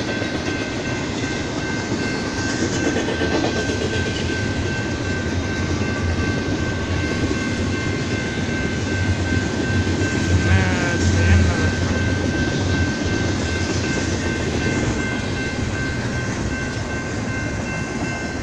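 BNSF double-stack container freight train rolling past close by: a steady rumble of wheels on rail, with a steady high ringing tone over it and a louder patch a little past the middle.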